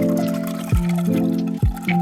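Background music: held chords over a deep drum hit about once a second.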